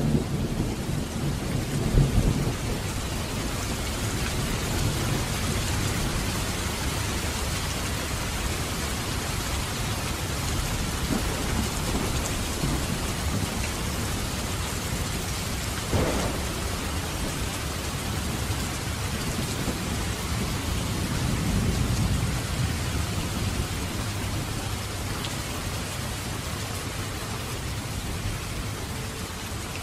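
Steady rain falling, with low thunder rumbling at the start and again about two-thirds of the way through. A single sharp tap sounds about halfway.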